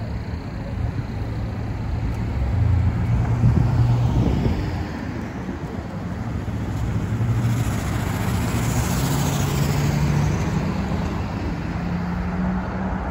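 Road traffic: cars passing close by, the noise swelling twice, once about two to five seconds in and again about eight to eleven seconds in.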